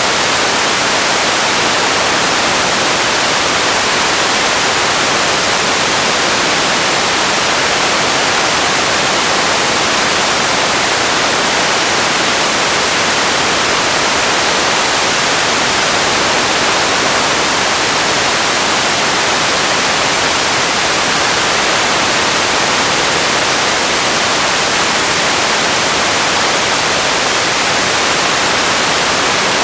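Steady, loud hiss like static or white noise, even and unchanging, with no distinct events.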